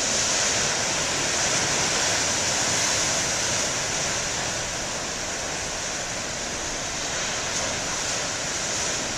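Ocean surf breaking and washing up the beach: a steady rush of waves, a little louder in the first few seconds and easing slightly after.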